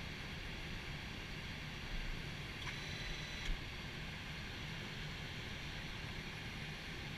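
Steady Airbus A320 flight-deck noise on the ground: a low rumble under an even airflow hiss. About two and a half seconds in, a short high tone lasts under a second and ends in a sharp click.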